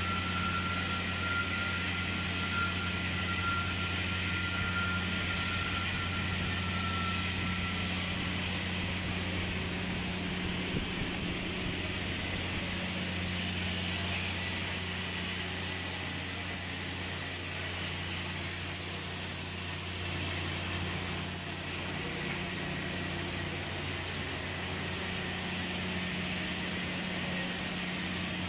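Steady low machine hum with a hiss above it, unchanging throughout, and a faint thin whine over roughly the first eight seconds.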